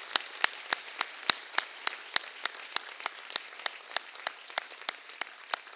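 An audience applauding, with one close, loud clapper striking steady claps about three times a second over the crowd's clapping.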